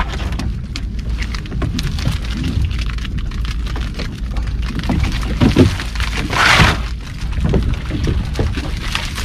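Seawater dripping and spattering off a freshly hauled crab pot, with many small clicks and rattles from the wire mesh and the crabs inside, over a steady low rumble. A louder rushing splash comes about six and a half seconds in.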